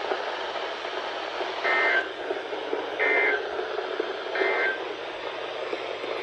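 Weather alert radio beeping: three short beeps about 1.4 seconds apart, each ending in a brief lower note, over steady radio hiss.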